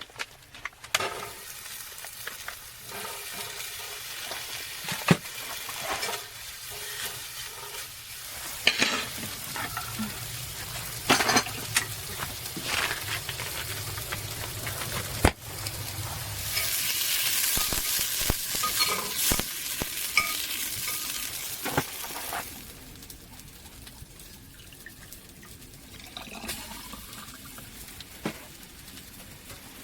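Food frying in a hot pan, with clicks and scrapes of a utensil stirring it. The sizzle grows louder and brighter for about six seconds past the middle, then drops back.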